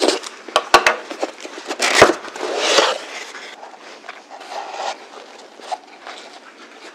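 A cardboard gift box being cut open and unpacked: a few sharp clicks as the cutter goes through the tape, a louder knock about two seconds in, then cardboard and paper rustling. The rustling fades to soft handling of burlap and jute twine.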